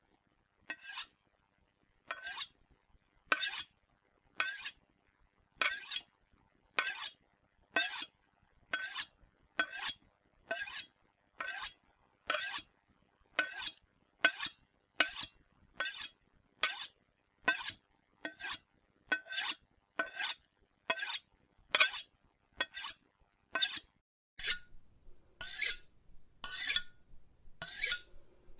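A knife being sharpened: the blade scraped along the sharpener in short, even strokes, roughly two a second, each with a brief metallic ring.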